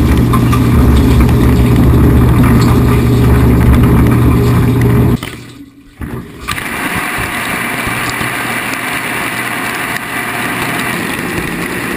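Dishwasher wash pump motor running with a steady low hum, cutting off about five seconds in. After a brief near-silent gap, a quieter steady rush of water takes over.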